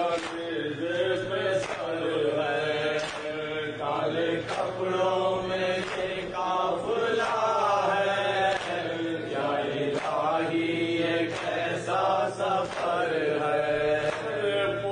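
Men chanting an Urdu noha, a Shia lament, into a microphone. A sharp thump keeps the beat about every one and a half seconds, the matam chest-beating that goes with the lament.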